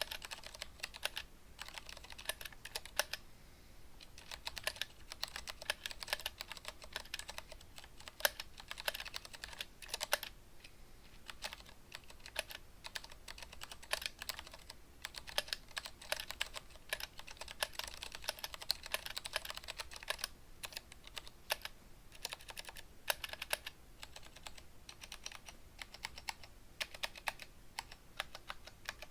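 Typing on a stock Vortex ViBe mechanical keyboard with unlubricated Cherry MX Clear switches: irregular runs of quick keystrokes with short pauses. The keys are very scratchy and the loose stabilizers make a lot of unwanted extra noise.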